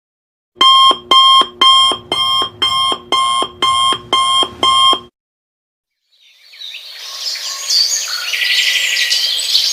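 Electronic alarm-clock beeping: nine short, even beeps at about two a second, which stop about five seconds in. About a second later, a birdsong ambience of small chirps over a soft hiss fades in.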